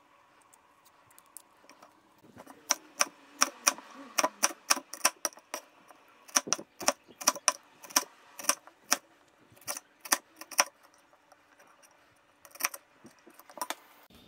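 Cleaver slicing a shallot on a plastic cutting board: a run of sharp knocks of the blade hitting the board, about three a second, starting a couple of seconds in and stopping about three-quarters of the way through, with a few more knocks near the end.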